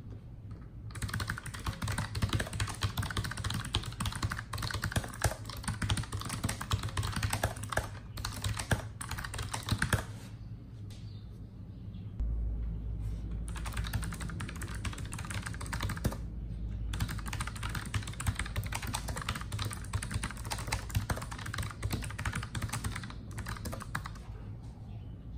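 Keychron K1 Version 2 low-profile mechanical keyboard being typed on, a fast run of key clicks broken by a few short pauses.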